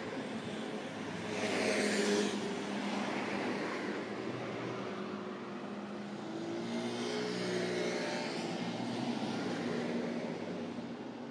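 Road traffic: cars driving past over a steady engine hum. One passes close, and briefly louder, about two seconds in, and another swells up and fades again in the second half.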